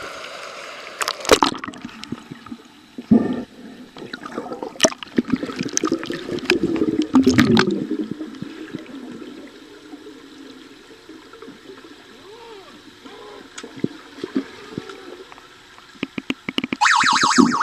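Pool water heard from a camera at and under the surface during underwater hockey: sloshing and gurgling, with scattered sharp clicks and knocks. A burst of rapid, high-pitched clicking comes near the end.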